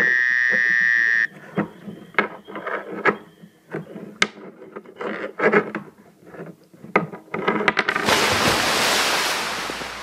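A high-pitched steady squeal lasting about a second. Then scattered light clicks and knocks, like small wooden puppet figures being moved on a toy stage. About eight seconds in, a loud hiss starts and fades away.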